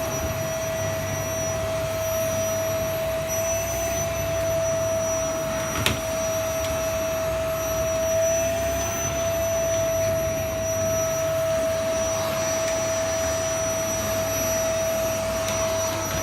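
Vacuum cleaner running steadily with a constant whine over its motor noise. There is one sharp click about six seconds in.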